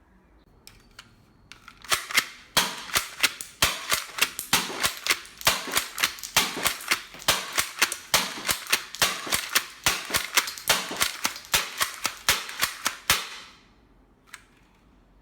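A realistic toy shotgun giving a rapid run of sharp snapping clicks, about four a second, that starts about two seconds in and stops abruptly near the end.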